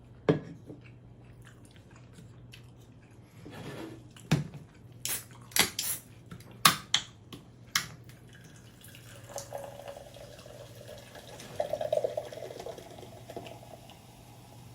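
Close-miked chewing and mouth sounds of someone eating pizza, with a run of sharp clicks and smacks in the first half and softer chewing after.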